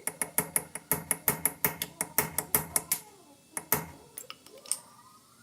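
Quick run of sharp metallic clicks from a hand tool working on metal, about six a second for three seconds, then a couple of louder clicks and a few scattered ones.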